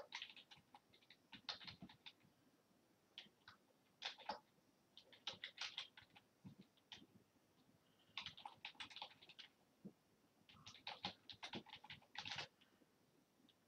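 Faint computer keyboard typing in several quick bursts of keystrokes separated by short pauses.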